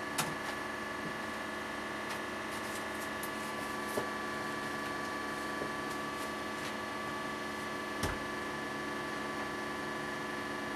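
Steady machine hum made of several fixed tones, with a few light knocks, about one every four seconds.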